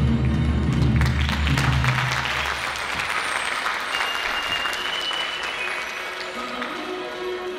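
Audience applauding over the dance music, the clapping starting about a second in and thinning out near the end. The music's deep bass drops out about three seconds in, leaving lighter sustained tones.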